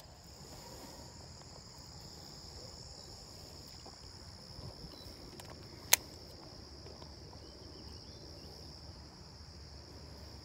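Steady high-pitched insect chorus, with one sharp click about six seconds in.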